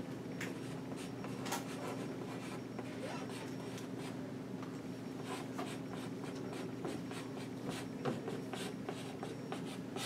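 Chalk writing on a blackboard: a run of short, irregular scratches and taps as the chalk forms each stroke.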